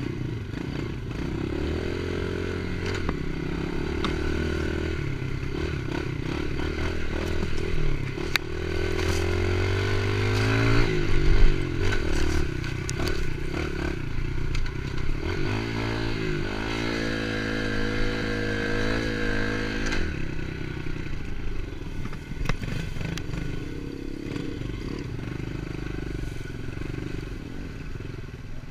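Pit bike's small single-cylinder engine running as it is ridden, revs rising and falling with the throttle, along with rattling from the bike over rough ground. The revs climb about ten seconds in, dip and climb again around sixteen seconds, then ease off at about twenty seconds.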